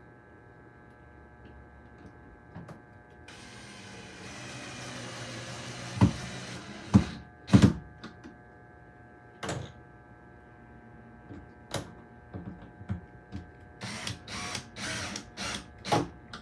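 Door-closer hardware and tools being handled. A rushing noise swells for a few seconds, then come scattered sharp knocks and clacks, bunched into a rapid run near the end.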